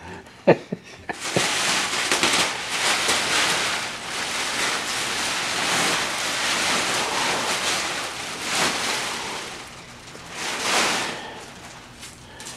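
Thin plastic wrapping rustling and crinkling as it is pulled off a mattress, with a louder swish about ten and a half seconds in. A couple of short sharp ticks come in the first second or so.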